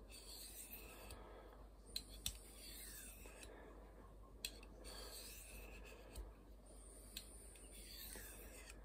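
Fallkniven F1's VG10 blade drawn in repeated strokes across the flat side of a white Triangle hone held in the fingers, giving a faint scraping with a few light ticks. This is the final edge-polishing stage of sharpening.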